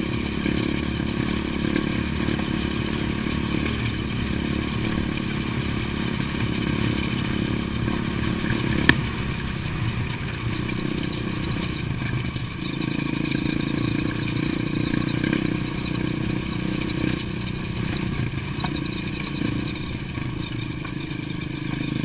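Dirt bike engine running steadily while riding over a gravel railway bed, with a single sharp knock about nine seconds in.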